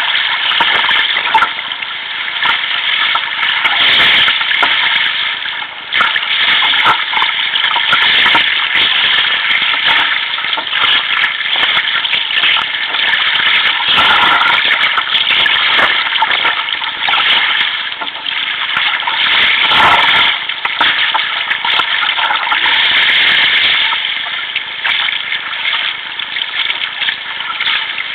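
Rough sea water rushing and splashing against a sea kayak's hull and deck: a continuous loud wash that swells and eases with the waves.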